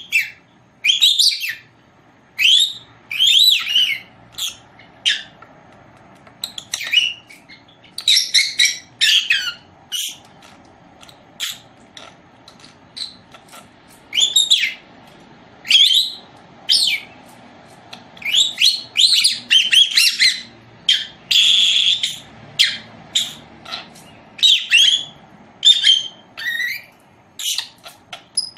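Lovebird chirping: short, sharp, high calls in quick irregular runs with short pauses between them.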